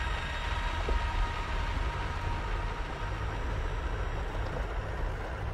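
Off-road truck driving slowly on a dirt trail: a steady low rumble.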